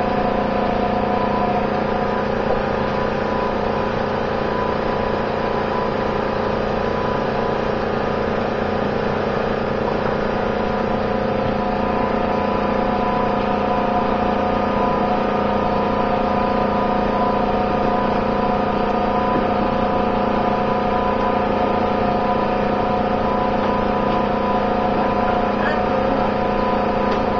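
An engine running steadily at constant speed, a fixed droning hum that neither rises nor falls.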